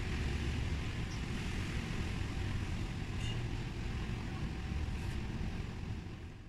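Steady low rumble of outdoor background noise with a few faint ticks, fading out at the very end.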